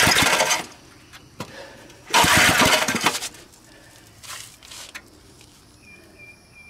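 Old Briggs and Stratton single-cylinder small engine being pull-started, firing and running for about a second twice before dying each time. The owner suspects it could be losing spark or that the carburetor needs work.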